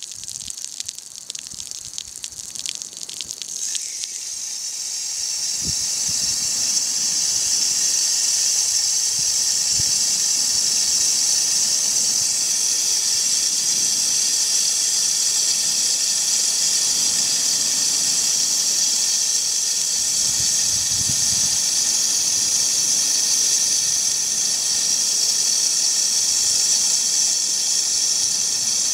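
Water spattering onto a glass pane for the first few seconds, then a steady high hiss that swells in over a couple of seconds and holds.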